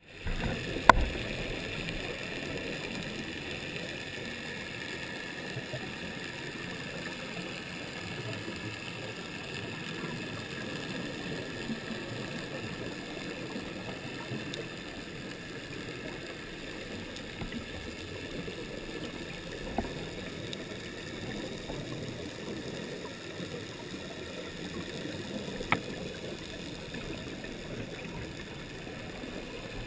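Steady, muffled underwater noise heard through a GoPro's waterproof housing, broken by a few short sharp clicks.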